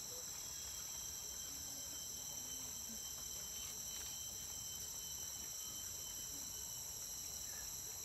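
Tropical forest insects, such as cicadas or crickets, keep up a steady chorus of several continuous high-pitched drones.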